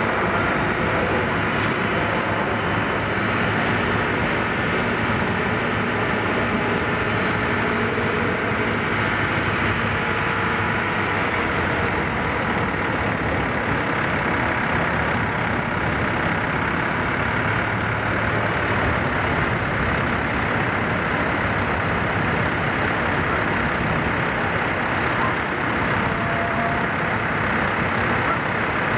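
Steady diesel engine running on a floating crane vessel, an even low rumble that neither rises nor falls while the crane works.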